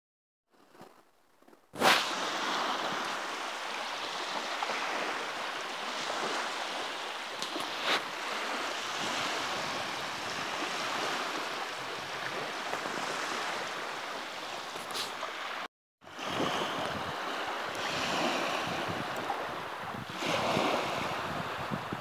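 Small waves washing onto a shore, a steady rush of water with gentle surges. It starts suddenly about two seconds in and cuts out for a moment about three-quarters of the way through.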